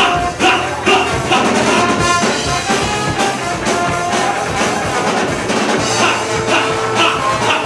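Live ska band playing loudly: two trombones and a mellophone hold horn lines over electric guitar, bass and drums, with a steady beat of about two strokes a second.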